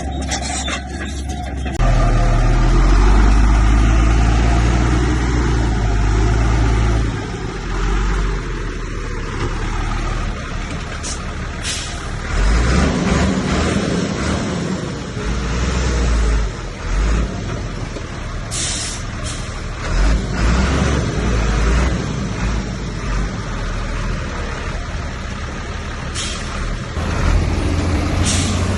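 Heavy diesel earthmoving machinery at work, the bulldozer's engine rising and falling under load as it pushes fill, with several short bursts of hiss.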